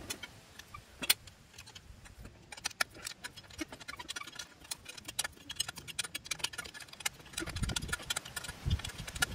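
Quick metallic clicks and clinks of hand tools and parts on a Lambretta scooter engine, becoming dense from about two and a half seconds in, with duller knocks near the end.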